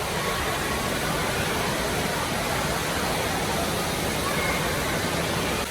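Steady rush of falling water with faint distant voices, the continuous din of an indoor water park.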